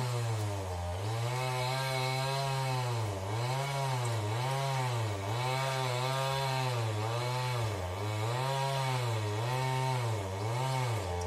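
Chainsaw running steadily while trees are being cut, its engine pitch dipping and recovering every second or so as it works through the wood.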